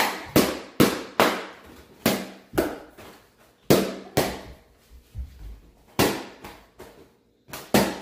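Latex balloons popping one after another: a dozen or so sharp bangs in quick, irregular succession, each with a short room echo, with a couple of brief pauses.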